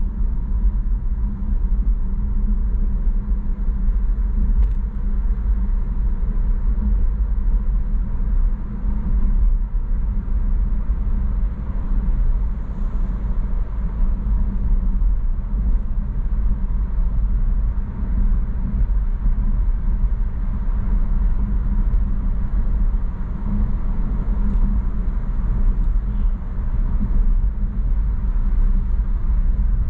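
Steady low rumble of a car on the move, its road and engine noise heard from inside the cabin.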